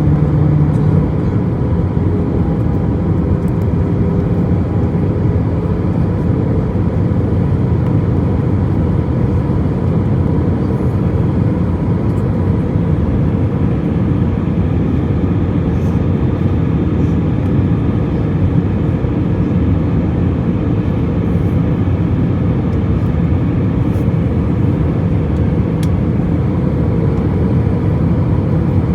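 Steady passenger-airplane cabin noise in flight: an even, low rush of engine and airflow noise with a faint steady tone above it.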